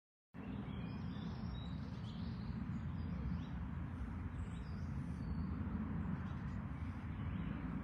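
Small garden birds twittering faintly over a steady low outdoor rumble.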